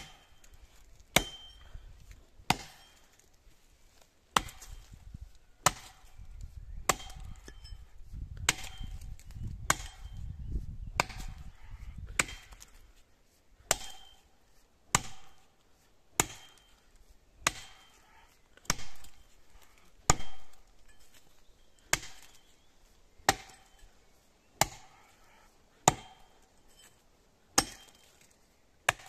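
Axe chopping into the trunk of a large pine tree: sharp, regular blows about one every 1.3 seconds, some two dozen in all, biting into the notch. A low rumble runs under the blows in the first half.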